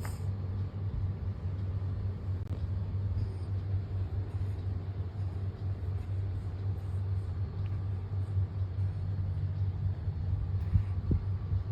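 Steady low background hum with a faint hiss above it, and one brief soft knock near the end.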